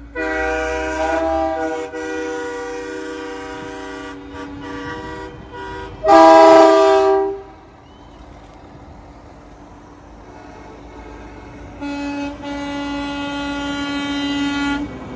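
Semi trucks' air horns sounding as they drive past, several notes at once like a chord: a long blast over the first few seconds, a louder short blast about six seconds in, and another long blast from about twelve seconds, with engines rumbling underneath.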